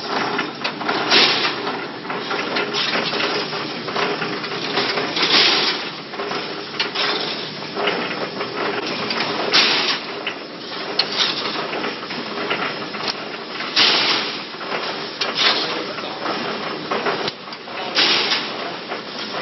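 Welding wire mesh machine running: a steady clatter with a louder knock every few seconds.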